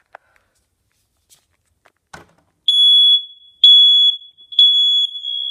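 Smoke detector sounding its test alarm: a loud, piercing high beep three times, each about half a second long, then sounding on. A click just before it, about two seconds in.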